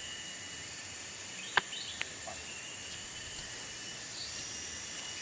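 Steady high-pitched trilling of insects in rural outdoor surroundings, with a sharp click about one and a half seconds in, a smaller click half a second later and a few short chirps.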